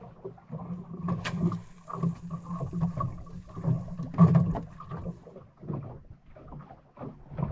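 Ambient sound of a small boat drifting on open water: irregular knocks and wind buffeting, loudest about four seconds in, with a faint high whine from about one to four seconds in.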